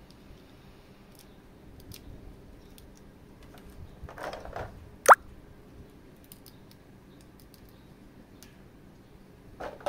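Hands handling a die-cast and plastic action figure and its packaging: scattered small clicks and taps, a brief rustle about four seconds in, and one short, sharp squeak about five seconds in, the loudest sound.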